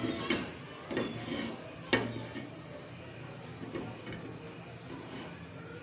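An aluminium frying pan knocking and clicking a few times against the gas stove's grate as it is held and shifted while its oil heats, over a steady low hiss.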